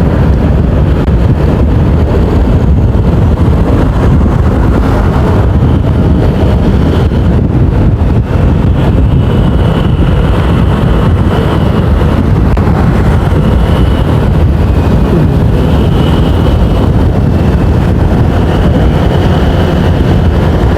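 Riding noise of a motorcycle on the move, heard through the rider's camera mic: a steady rush of wind buffeting and engine and road noise. A faint high whine comes and goes in the second half.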